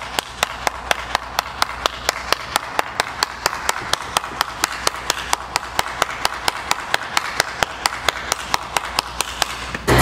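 One person clapping hands in a steady, quick rhythm of about five claps a second, stopping near the end.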